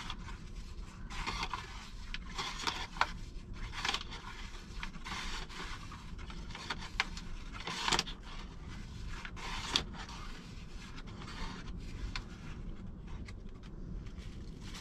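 Whole-grain spelt flour being poured, shaken and scraped out of its bag into a bowl on a kitchen scale: irregular rustling and scraping strokes, with a few sharper scrapes.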